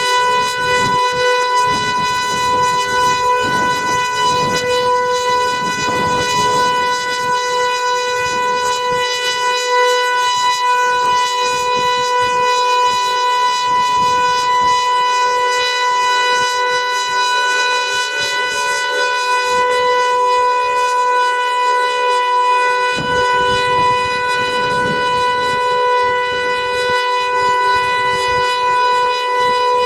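Siren being tested, sounding a loud, steady tone that holds one pitch without rising or falling.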